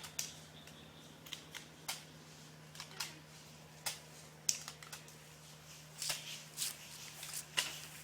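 Scattered, irregular sharp light clicks and crackles, a dozen or more, over a faint steady hum.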